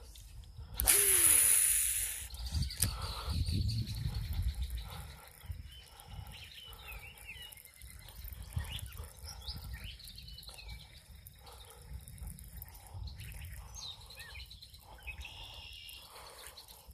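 Small birds chirping now and then over a low wind rumble, with a loud, brief rush of noise about a second in.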